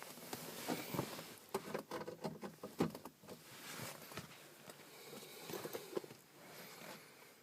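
Irregular light clicks and rustles of handling noise, with no engine cranking or running and no pump running.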